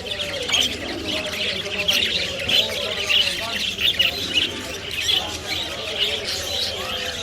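Many caged birds chirping and squawking at once, a dense, unbroken chorus of short high calls.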